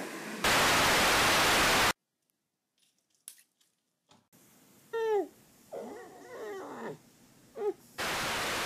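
A burst of TV-static white noise used as an edit transition, starting and cutting off abruptly after about a second and a half. After a silent gap come a few short whining cries that fall in pitch, and near the end a second, quieter burst of static begins.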